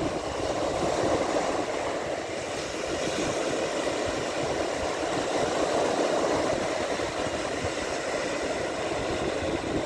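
Sea surf: small waves breaking and washing up the shore, a steady rushing that swells slightly as each wave breaks.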